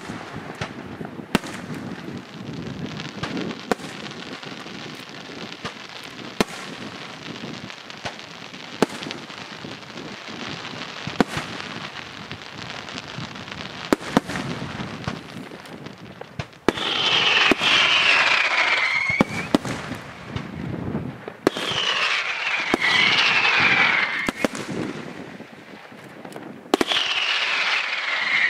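Senatore aerial fireworks show: a quick run of sharp shell bursts over steady crackling. In the second half come three louder spells of hissing, each with a falling whistle.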